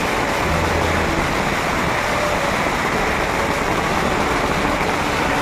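A 10,000-wala string of firecrackers bursting in rapid succession, the bangs running together into one dense, steady crackle with no pauses.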